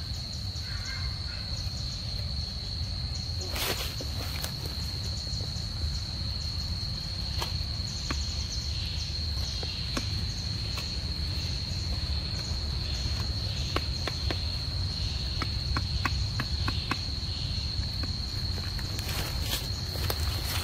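Steady high-pitched insect drone, one unbroken tone, over a low rumble, with scattered short clicks and a sharper knock about three and a half seconds in.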